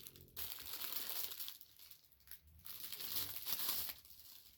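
Packaging being handled, crinkling in two short spells with quiet pauses between.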